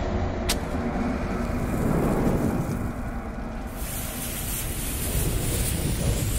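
Logo-intro sound effect of a burning bomb fuse and fire: a low rumble under a steady hiss, with a short click about half a second in. The hiss turns brighter and more sizzling about three and a half seconds in.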